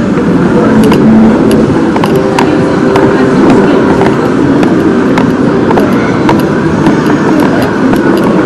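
Loud, steady hubbub of a busy diner and arcade, with scattered sharp clicks and clatter.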